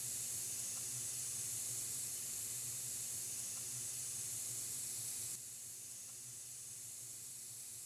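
Compressed air hissing steadily as it leaks from the quick-connect air fitting on a dual-action airbrush. About five seconds in, the hiss drops suddenly to a quieter level.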